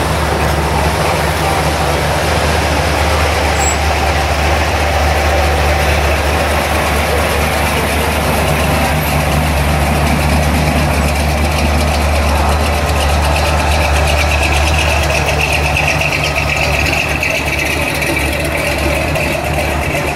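Engines of slow-moving classic vehicles running at idle speed, a low steady rumble: a lifted 1970s Dodge pickup rolls past close by, and a first-generation Camaro SS's V8 comes up behind it.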